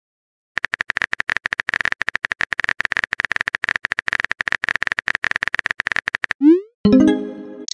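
Texting-app typing sound effect: a rapid, even run of keyboard clicks from about half a second in until just past six seconds. It ends in a quick rising swoop and a short pitched chime as the message is sent.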